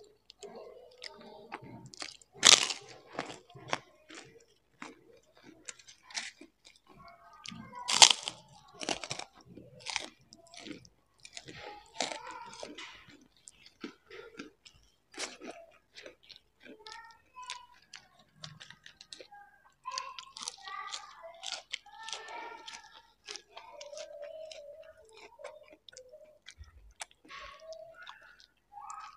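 Close-miked mukbang eating: crunchy bites and chewing of fried kerupuk crackers and raw vegetables, with two loud crunches, one about two and a half seconds in and another about eight seconds in, then many smaller crackly bites.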